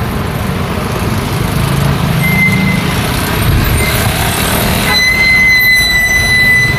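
Busy road traffic: cars and trucks driving past with a continuous engine rumble and road noise. A brief high squeal sounds about two seconds in, and a stronger steady high squeal sets in about five seconds in and holds for nearly two seconds.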